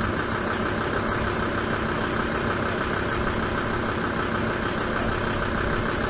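Engine idling steadily with an even, unchanging rumble.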